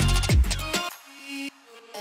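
Background music with a heavy bass beat and sliding bass notes that cuts out under a second in, leaving a few soft, quieter notes.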